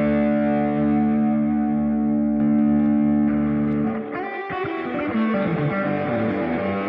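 Electric guitar played through a Ring Boost Ranger booster pedal: a chord held and ringing for about four seconds, then a run of picked single notes with string bends.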